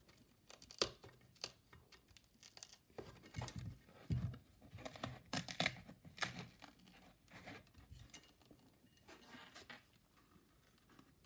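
A small loudspeaker's paper cone being torn apart by hand: irregular tearing and crinkling with scattered crackles, opening the speaker up to its spider, voice coil and magnet.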